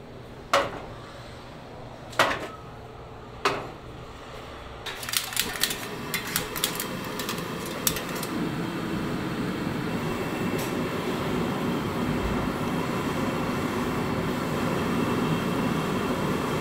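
Kitchen cookware clanking three times with a short ring, then a run of quick clicks and rattles and a steady rushing noise that builds up about five seconds in and holds.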